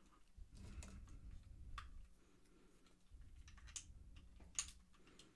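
Plastic parts of a Transformers Armada Optimus Prime toy being handled and clicked into place: a few faint, sharp clicks, the loudest a little before the end.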